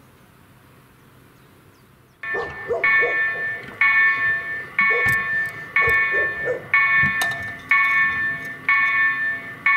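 Bombardier electronic level-crossing bell switching on about two seconds in and ringing about once a second, each stroke a bright chime that fades before the next: the crossing warning has been triggered by an approaching train.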